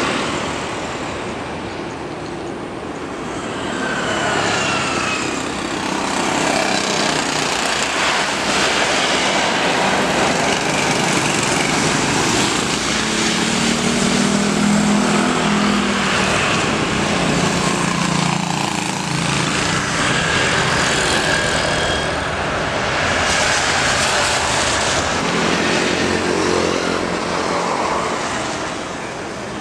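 Jet airliner noise from a Boeing 737-800 landing on its CFM56-7B turbofans. A falling whine a few seconds in gives way to a steady roar, loudest midway through the rollout, and the roar of another jetliner on approach takes over near the end.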